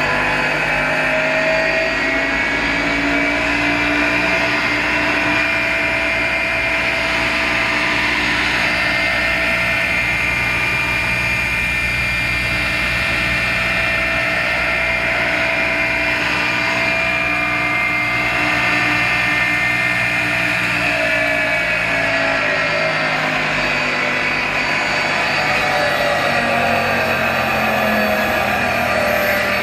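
Panrui 10 HP rotary screw air compressor running on its variable-frequency drive: a steady motor-and-airend hum and whine. Its pitch rises a little in the first few seconds, holds, drops about two-thirds of the way through, then climbs again near the end, as the drive changes the motor speed.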